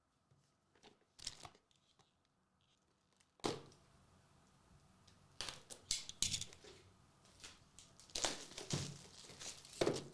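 Trading-card packaging being torn open and handled: wrapper tearing and crinkling in irregular bursts, getting busier after about three seconds.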